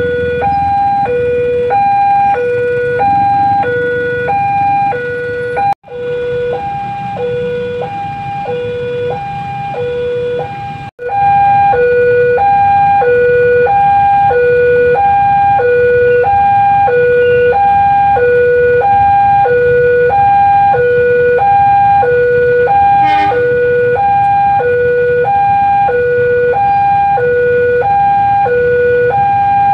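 Railway level-crossing warning alarm: an electronic two-note tone alternating high and low about once a second, sounding while the barriers are down for an approaching train. It drops out briefly twice in the first half and is louder after the second break.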